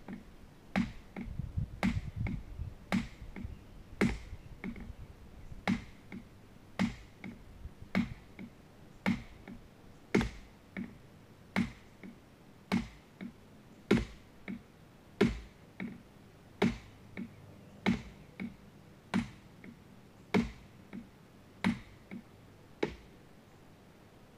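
Hammer blows on the top of a steel ground rod, driving it into hard, rocky clay soil: sharp metallic strikes with a short ring, about one a second, some twenty blows with a few lighter taps between, stopping near the end.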